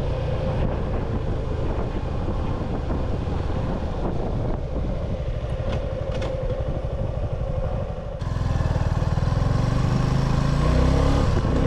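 Motorcycle engine running under way, with road and wind noise. About eight seconds in the sound changes abruptly and gets louder.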